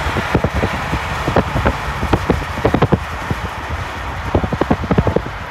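Wind buffeting the phone's microphone in many irregular low thumps, over a steady broad rumble.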